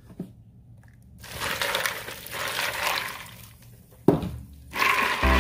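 Ice cubes and water rattling and washing in a glass bowl as a blanched geoduck siphon is chilled in ice. A sharp knock comes about four seconds in, and background music starts near the end.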